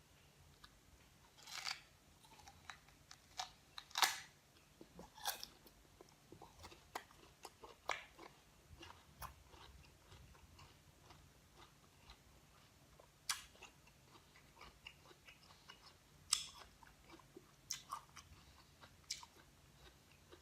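Crunchy biting and chewing of a crisp green guava, close to the microphone: irregular crisp crunches, a handful of them louder bites, between quieter chewing.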